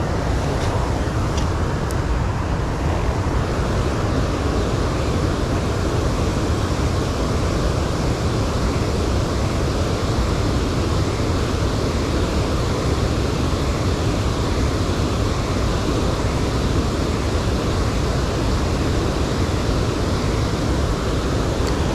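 Steady rushing of water pouring over a river spillway, an even roar with no breaks.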